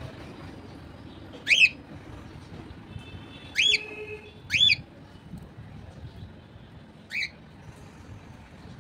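Cockatiels giving four short, shrill calls: one early, two close together near the middle, and one near the end.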